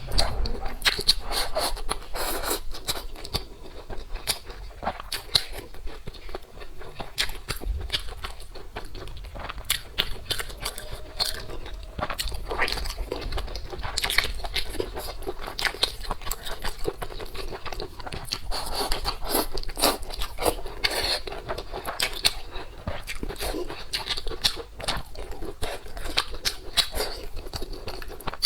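Close-up eating sounds: food being chewed and crunched, with many small irregular clicks and crackles.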